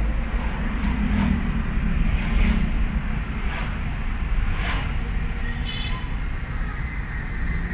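Engine and road noise heard inside a moving car's cabin: a steady low rumble, with a few short clicks and a brief high-pitched tone about six seconds in.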